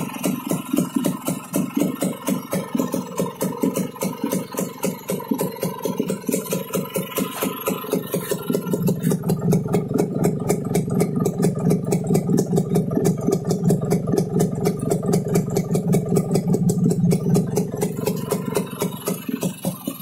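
Small single-cylinder motorized-bicycle engine with a standard bore idling with a steady, even pulse. About a third of the way in the exhaust note gets louder and deeper, as heard close to the muffler.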